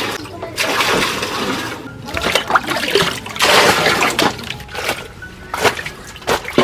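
Water splashing in several separate bursts of about a second each.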